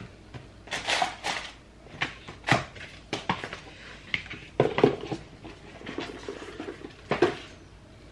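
Beauty-box products and their packaging being handled and set down: irregular knocks and clacks with rustling in between.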